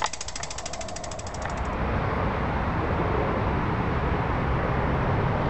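Bicycle freewheel hub ticking rapidly and evenly as the rider coasts, stopping about two seconds in. A steady rushing noise with a low rumble follows and grows louder.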